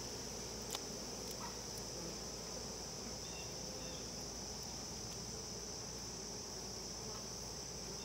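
Steady, even high-pitched insect trill, with honey bees humming low around the opened hive beneath it. A light click just under a second in.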